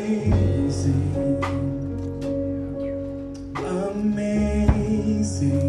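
A man singing a slow song into a microphone with instrumental accompaniment, holding long steady notes over sustained low chords, amplified through a hall's speakers.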